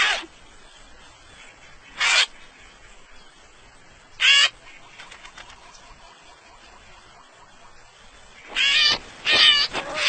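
Short animal cries, one every two seconds or so at first, then several in quick succession near the end.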